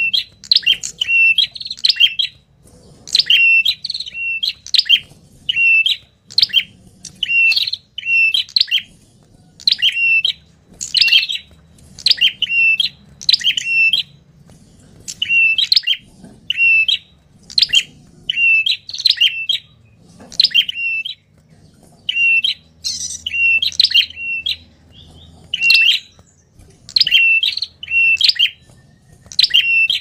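Tailorbird (prenjak kepala merah) calling noisily: rapid clusters of sharp, high chip notes repeated about once a second with short breaks.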